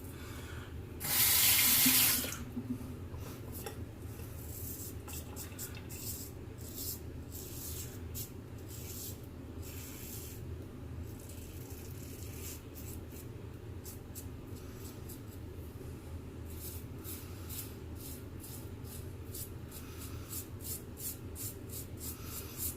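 Tap water runs for about a second, starting about a second in, as the razor is rinsed under it. Afterwards come many faint short scratchy strokes, typical of a double-edge safety razor scraping through lathered stubble, growing denser near the end.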